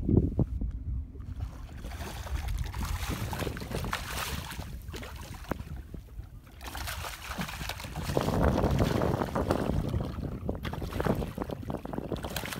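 Wind buffeting the microphone in uneven gusts, with water sounds around a boat; the wind swells loudest about two-thirds of the way through.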